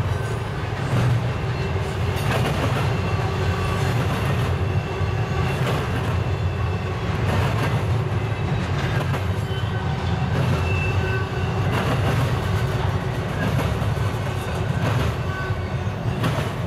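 Freight train cars rolling past: a steady low rumble with occasional clicks of wheels over rail joints and short, high-pitched wheel squeals. The sound eases slightly near the end as the last car goes by.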